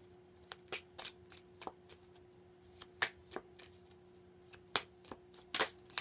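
Tarot cards being shuffled and handled: irregular, crisp clicks and snaps of the cards, over a faint steady hum.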